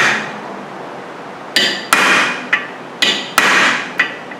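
Hammer striking a steel drift punch set on a rusted Phillips-head rotor retaining screw: about six sharp metallic taps with ringing after each, one at the start, then after a pause of about a second and a half the rest in quick pairs. The blows are meant to break loose the rust inside the screw's threads so it can be turned out without stripping.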